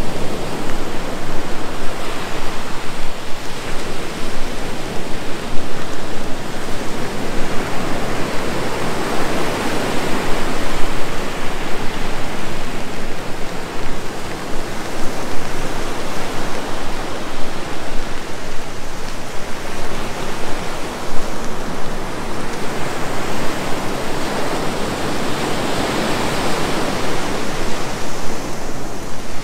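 Rain falling with ocean surf breaking on the beach: a continuous rushing hiss that swells and eases slowly several times as waves come in.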